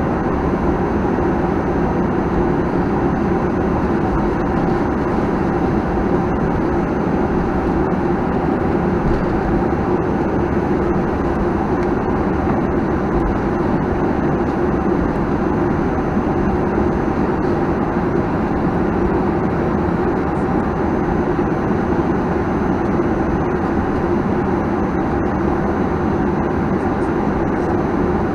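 Steady cabin noise of a Boeing 737-900ER taxiing, its CFM56-7B engines running near idle, heard from inside the cabin as an even rumble with a low hum.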